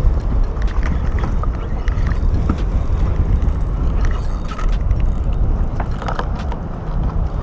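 Wind rumbling heavily on the microphone, with a few sharp clicks and knocks from a spinning reel being cranked.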